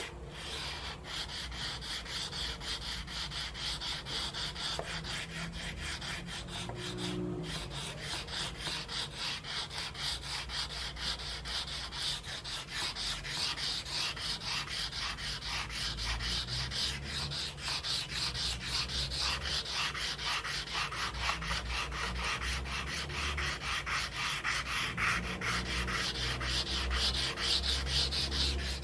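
Stick of charcoal scratching and rubbing across paper in rapid, continuous back-and-forth strokes, a little louder toward the end.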